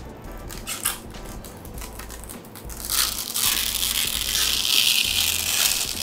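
Clear protective plastic film being peeled off a PC case's glass side panel: a crackling, tearing peel that is faint at first and grows much louder about halfway through as the film pulls away.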